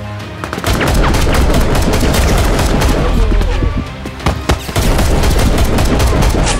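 Rapid, overlapping bursts of gunfire sound effects, dense and loud with a deep low rumble, starting about half a second in and running over background music.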